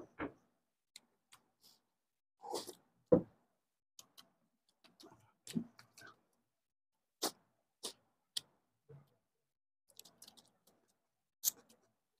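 Close-miked eating of biryani by hand from metal platters: irregular short clicks and smacks of chewing and lip-smacking, with fingers working the rice on the platters. The loudest sharp smack comes about three seconds in.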